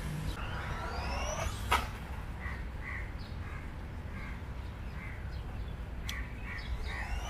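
The stock 390 brushed electric motor of a WLtoys A959 RC buggy whines, rising in pitch as it speeds up in the first second or so; a sharp click follows. Then a bird gives short calls repeated about every half second, over a steady low rumble.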